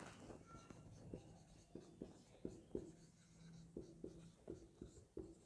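Marker pen writing on a whiteboard: faint, short, irregular strokes and taps as words are written by hand.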